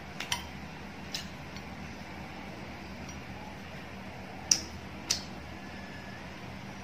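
Several light clinks on a ceramic plate as bare fingers pick grilled fish off it, the two sharpest coming a little after the middle. A steady low hum runs underneath.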